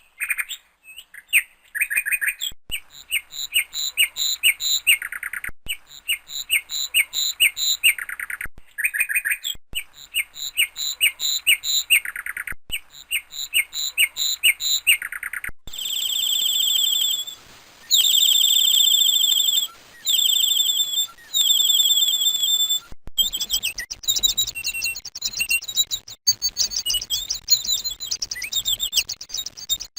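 Songbirds chirping in quick repeated notes. About halfway through, the calls change to higher, fast trills in bursts of a second or two. Near the end they change again to rapid, high chirps.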